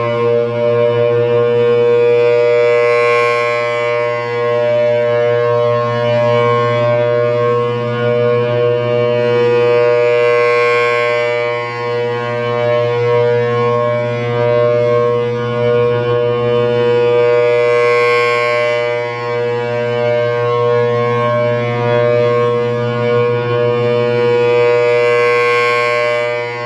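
Federal Signal Thunderbolt 1000AT siren with a 4/5-port chopper sounding a steady Alert, a loud two-note chord held at one pitch. It swells louder about every seven and a half seconds as the rotating horn sweeps past.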